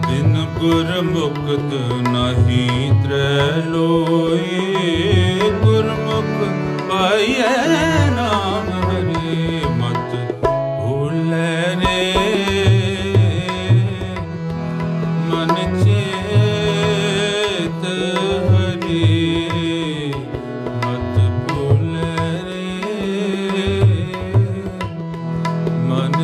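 Harmonium playing held chords and a melody over a steady tabla rhythm, the low drum strokes regular throughout, as kirtan accompaniment.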